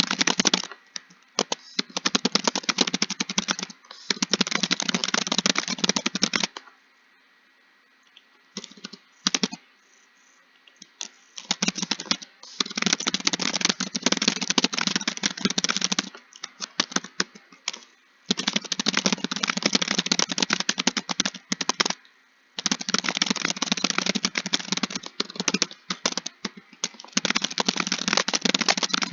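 Fast typing on a keyboard: runs of rapid key clicks separated by short pauses, with one longer pause of about five seconds near the start of the second quarter, broken only by a few single keystrokes.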